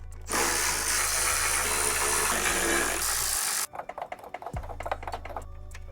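A loud, steady hiss that starts and stops abruptly and lasts about three seconds, followed by light metallic clanks and rattles as loose exhaust parts are handled.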